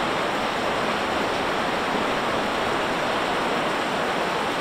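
Heavy tropical rain pouring down in a steady, even rushing hiss.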